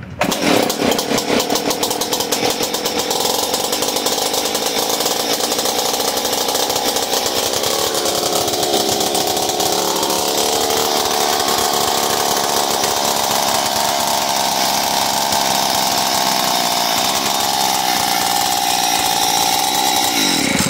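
Stihl two-stroke concrete cut-off saw firing on the pull and running, hand-primed with a few drops of fuel poured straight into the engine. It keeps running for about twenty seconds, its speed wandering around the middle, and shuts off at the very end.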